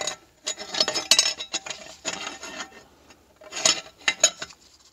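Metal clinking and rattling as a TH350 transmission pressure plate is set and worked into the transmission case by hand. The clinks come in two spells, the first longer, with a short metallic ring.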